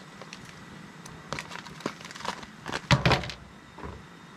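Fresh ravioli dropped by hand into a stainless pot of boiling water: a few soft plops and splashes and some crinkling of the plastic package over the steady bubble of the boil, with a louder thump about three seconds in.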